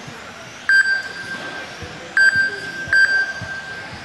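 Race lap-timing system chiming as cars cross the timing line: three ringing tones, each struck sharply and fading over most of a second, the last two closer together.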